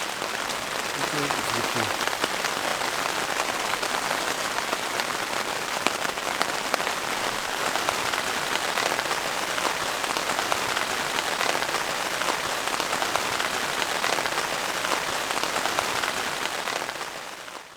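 Heavy, steady rain with a dense patter of individual drops, fading out near the end.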